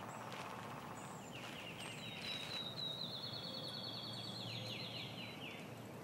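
Small birds singing rapid, dry trills in woodland. Several trills of evenly spaced notes start and stop, each a second or two long. The highest and clearest one falls in the middle.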